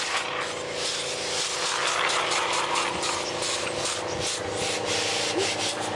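A partly built model steam locomotive running on compressed air: a rasping, rapid run of exhaust beats and hissing air from its cylinders.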